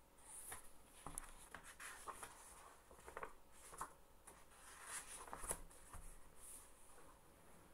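Near silence with faint rustling and scattered light clicks of hands handling things at a desk.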